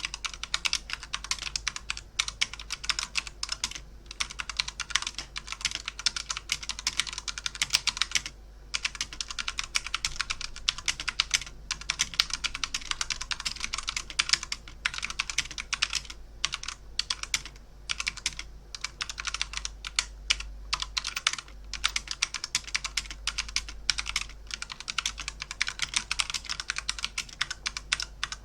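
Computer keyboard being typed on fast and continuously, a dense clatter of key clicks broken by short pauses every few seconds.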